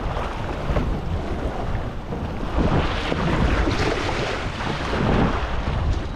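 Wind buffeting the microphone over waves splashing against the side of a boat's hull, swelling louder through the middle of the stretch.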